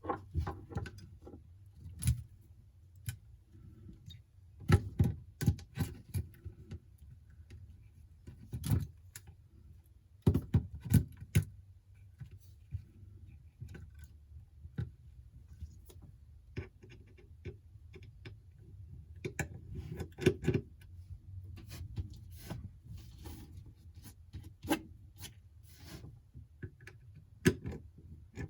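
Small metal repair tools and tiny parts clicking and tapping against an opened iPhone 11 and the work surface, in irregular bursts of light clicks and knocks.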